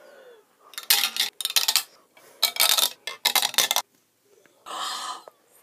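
Marbles rattling and clattering down a tube in several bursts of rapid clicking, followed by a short rushing noise about a second before the end.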